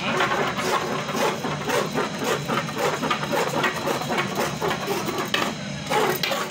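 Fluted pastry cutter wheel drawn quickly across a sheet of rolled dough on a wooden board, a rapid rhythmic scraping at about five strokes a second.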